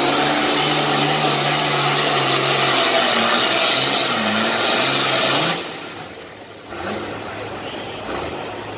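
Turbocharged diesel engine of an International 1066 pulling tractor running flat out under load during a pull, then dropping off suddenly about five and a half seconds in as the pull ends, leaving a quieter engine sound.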